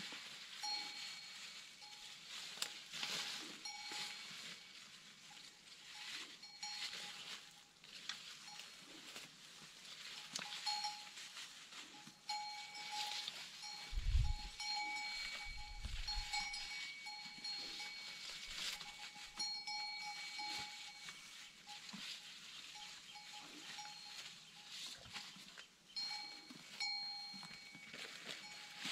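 A metal bell clanking on and off, irregularly and at one pitch, like a bell on a grazing animal. There are two low thumps about halfway through.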